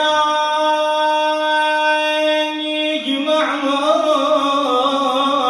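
A male lament reciter (radood) singing a Shia elegy without accompaniment, holding one long steady note for about three seconds, then sliding to a slightly lower, wavering note.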